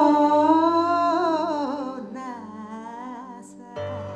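A woman singing one long held note with a wavering vibrato over backing music. About two seconds in the note slides down and fades, and near the end the backing music changes.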